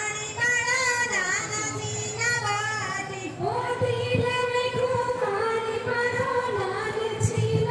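A high female voice singing a folk dance song with long, wavering held notes over music with a faint low beat.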